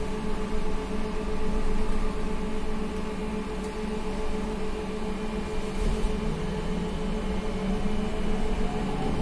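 Inside a SVARZ-MAZ-6275 trolleybus under way: a steady electric hum and whine from the drive and converter equipment over road rumble.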